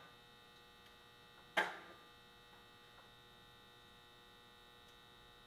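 Faint steady electrical hum made of several high, even tones, with one sharp knock that rings briefly about a second and a half in.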